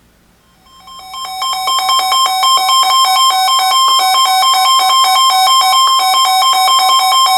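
Weather radio alert alarm: a loud, rapidly pulsing two-tone electronic beeping that swells in over about a second and then holds steady, signalling an incoming warning broadcast.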